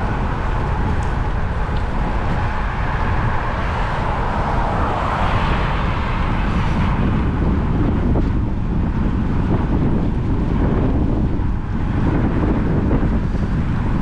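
Wind buffeting the microphone during a bicycle ride, over a steady hiss of road and traffic noise; the hiss swells about five seconds in, as traffic passes.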